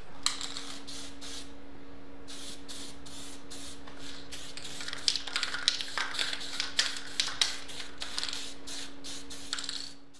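Aerosol spray paint can spraying onto metal trike parts in repeated short hissing bursts with brief pauses, and a run of sharp clicks in the middle. The sound fades out near the end.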